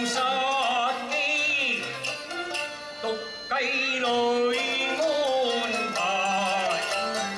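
Cantonese opera music: a melody line with wavering vibrato and sliding notes over the accompaniment, held continuously.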